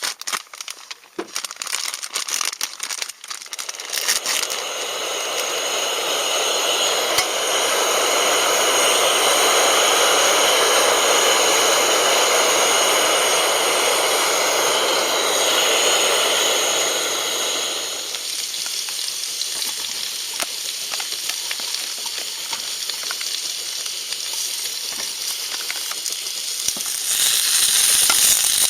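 Food sizzling and crackling in a hot pan. It swells to a loud, steady sizzle for about fourteen seconds, drops suddenly to a quieter crackle, and swells again near the end.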